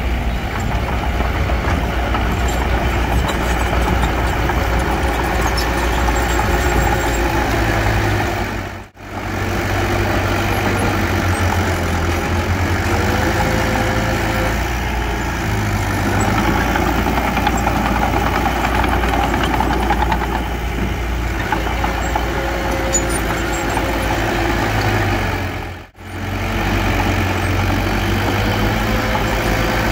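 Diesel engine of heavy earthmoving machinery running steadily, its low hum shifting a little in pitch. The sound drops away briefly twice, about nine seconds in and again near the end.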